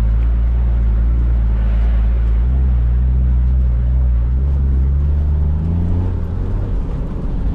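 Toyota LandCruiser 80 Series engine running under load while driving. Its pitch rises steadily from about three seconds in as it accelerates, then drops back near six seconds.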